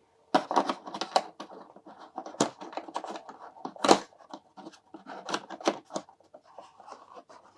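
Handling of plastic miniatures and their packaging: a busy run of small clicks, taps and scrapes, with a sharper knock about four seconds in.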